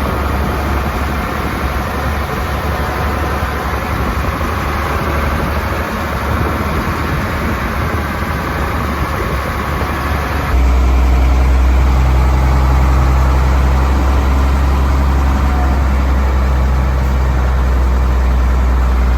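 Truck engine and road noise while driving, a steady low rumble that changes abruptly to a louder, deeper one about halfway through.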